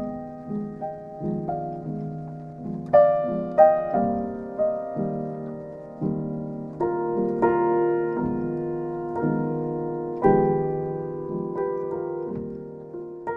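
Background music on solo piano: gentle notes and chords struck a few times a second, each fading away.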